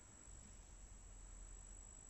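Near silence: faint room hiss and low rumble, with a thin steady high-pitched whine.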